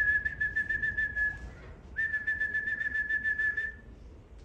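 Two long, steady whistles, each held for under two seconds, from a pigeon fancier calling his racing pigeons down to the loft, with a fast run of faint clicks alongside each.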